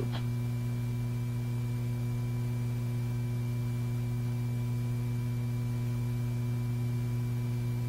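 Steady electrical hum with a few fainter steady tones above it.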